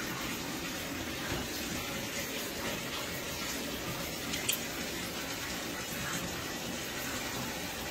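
Tap running steadily into a bathtub as it fills, a constant rushing hiss. A brief sharp click about four and a half seconds in.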